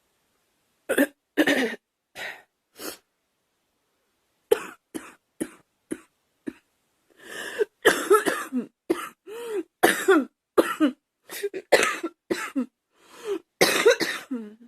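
A girl coughing: a pair of coughs about a second in and two lighter ones, a short pause, then short sharp coughs that run into a long, dense coughing fit of some twenty coughs, several of them throaty.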